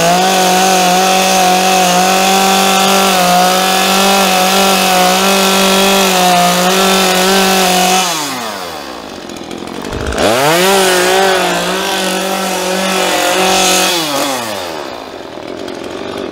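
Chainsaw running at full throttle, carving into tamarind wood. About eight seconds in the revs fall away; they rise sharply again about two seconds later, hold steady, and wind down again near the end.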